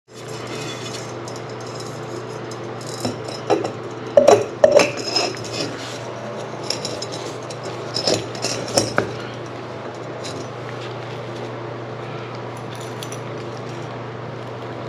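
Small hard objects clinking and clattering as they are handled, in a few short clusters of knocks, over a steady low hum.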